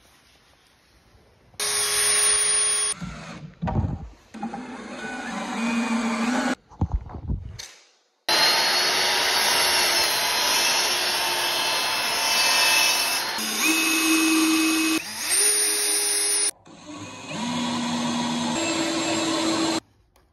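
Power tools running in a string of short clips that start and stop abruptly, among them a Ryobi sliding miter saw cutting pine boards. The motor pitch holds steady within each clip and steps up or down between them.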